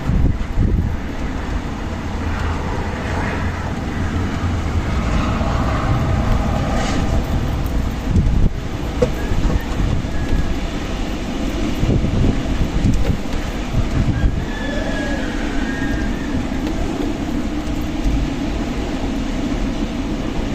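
Strong wind blowing in gusts, with a heavy low rumble of wind buffeting the microphone and a faint high whistle now and then.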